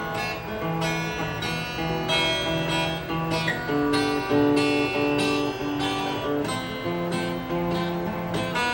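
Guitar strummed in a steady rhythm, about two strokes a second, its chords ringing on between strokes.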